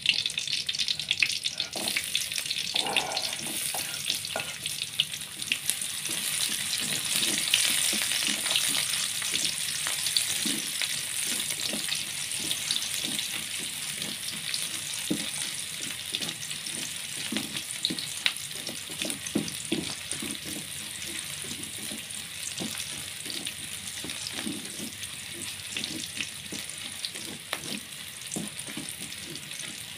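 Garlic frying in hot oil in a pan: a steady sizzle, stirred, with frequent short knocks and scrapes against the pan. The sizzle gradually gets quieter.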